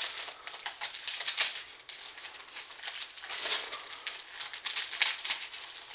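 Gift-wrapping paper and tape rustling and crinkling under the fingers, in irregular small crackles and clicks, with a fuller rustle about halfway through.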